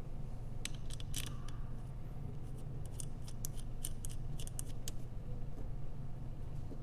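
Light metallic clicks and ticks, scattered and irregular, as small cap head Allen screws are handled and turned by hand into the aluminium housing of a rivet nut setter.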